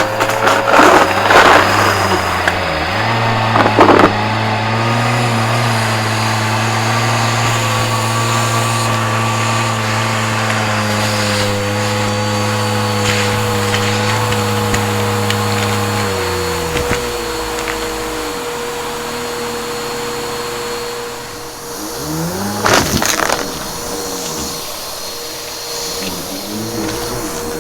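Bissell PowerForce Helix upright vacuum running with a steady hum, crackling as it sucks up crunchy debris in the first few seconds. About two-thirds of the way in the motor pitch sinks, then glides back up a few seconds later.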